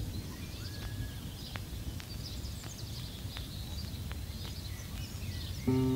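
Birds chirping over a steady low rumble, with a few faint knocks. Near the end a sustained chord of music comes in.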